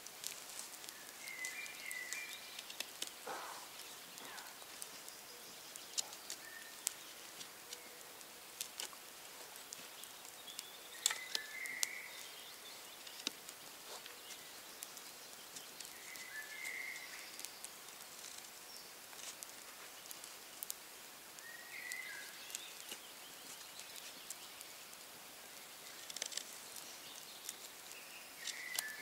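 A knife whittling a green wood stick, with scattered sharp clicks and scrapes as the blade bites. A bird gives a short call about every five seconds.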